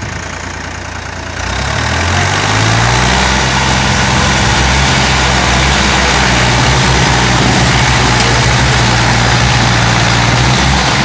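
Mahindra diesel tractor engines in a tug of war, chained together and pulling against each other. About a second and a half in the engines rev up, then they run steadily at high revs under heavy load.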